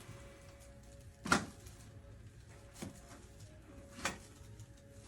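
Three short, sharp clicks during a chiropractic adjustment, a little over a second apart, the first and loudest about a second in.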